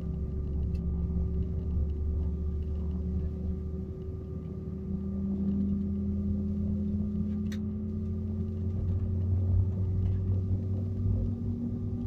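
Airbus A319 cabin noise while taxiing: a steady engine hum over a low rumble, with one low tone rising slightly in pitch from about five seconds in. A single sharp click sounds about halfway through.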